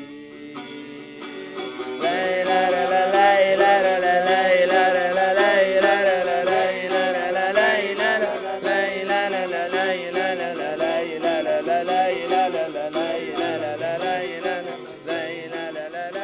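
A man and a woman singing a wavering melody in full voice over a plucked long-necked lute. The singing comes in loudly about two seconds in.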